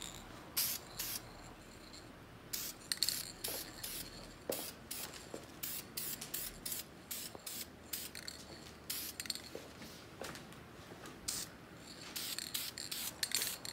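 Aerosol spray can of caliper paint hissing in many short bursts, each under a second, with pauses between, as coats go onto brake calipers.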